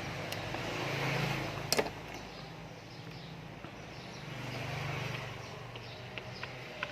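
Passing road vehicles: a steady engine hum that swells and fades twice. Over it come a few sharp clicks, the loudest about two seconds in, and small ticks near the end.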